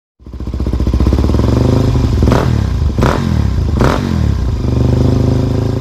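Single-cylinder engine of a 2022 Kawasaki KLR650 idling, with the throttle blipped three times about a second apart in the middle.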